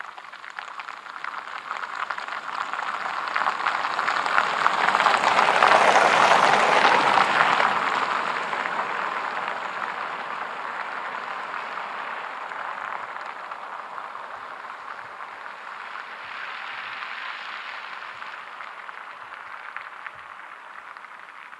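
2019 Kia K900 driving past, its tyres hissing on a wet road: the rushing noise builds to a peak as the car passes about six seconds in, then fades as it drives away, swelling briefly again later.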